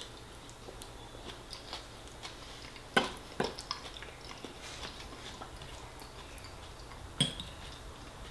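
Metal fork and spoon clinking and scraping against a dinner plate while eating, with sharp clinks about three seconds in and again near the end, over soft chewing.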